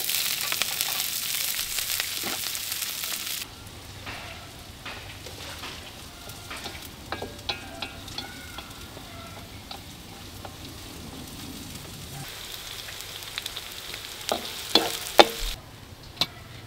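Food frying in hot oil in a pan: a loud, even sizzle that cuts off abruptly after about three and a half seconds, then a quieter sizzle with scattered clicks and taps of a utensil against the pan. The sizzle grows louder again near the end, with a few sharper knocks.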